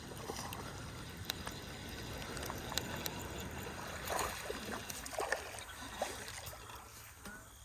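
Water splashing lightly as a hooked fish is reeled to the bank of a pond, over a steady low rumble.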